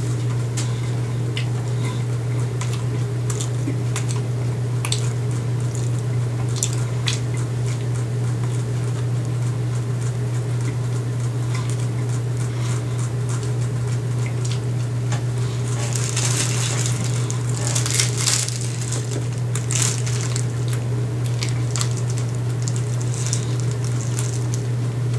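Wet, squishy chewing and small clicks of a mouth full of cream-filled snack cake over a steady low hum, with a few louder crinkles of a plastic wrapper about two thirds of the way through.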